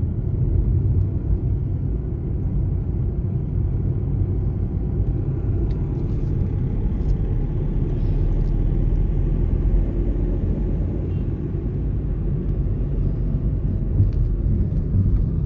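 A car being driven along a road, heard from inside its cabin: a steady low rumble of engine and tyre noise.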